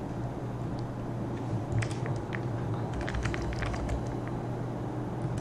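Computer keyboard keystrokes: a couple of clicks about two seconds in, then a quick run of clicks a second later, over a steady low hum.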